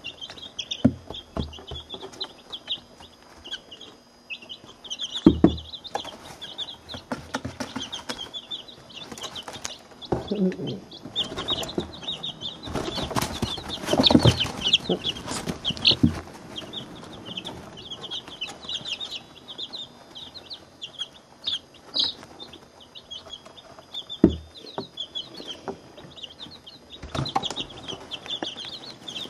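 A box of week-old chicks peeping steadily, a constant stream of short, high cheeps. Taps and scuffling in wood shavings sound close to the microphone, loudest about halfway through as a chick works right at the lens.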